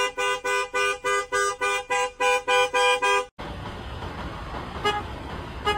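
Two-note car horn sounded by a dog in quick short toots, about four a second. It cuts off suddenly after about three seconds; then steady low background noise with two single short toots near the end.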